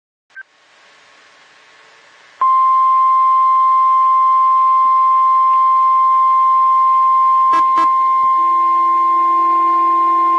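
NOAA Weather Radio's 1050 Hz warning alarm tone: one loud, steady single-pitch tone that comes in abruptly about two and a half seconds in, after faint static, and holds. Two brief clicks cut in about three quarters of the way through.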